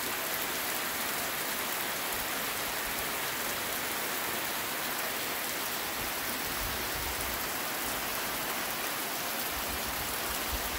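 Steady rain falling on a muddy dirt road and trees: an even hiss of rainfall.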